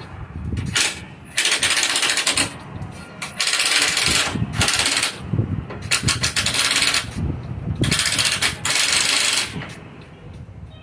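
Repeated short bursts of harsh, rattling mechanical noise, about seven in all, each lasting up to a second with brief pauses between.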